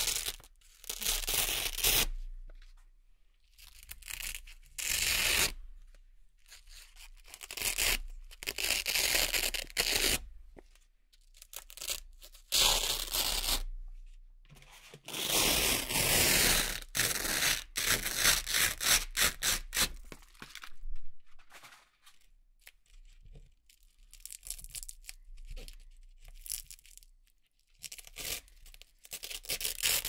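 Hook-and-loop (Velcro) strips being peeled apart by hand: a series of crackling rips, some slow and drawn out, others short and quick, with short pauses between pulls. The longest steady rip comes about halfway through.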